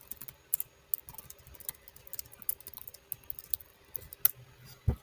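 Typing on a computer keyboard: a quick, irregular run of key clicks, with one sharper click about four seconds in and a low thump just before the end.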